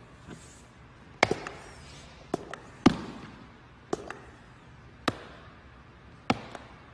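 A series of sharp knocks or thuds, about one a second and often in quick pairs, each with a short ringing tail as in a room.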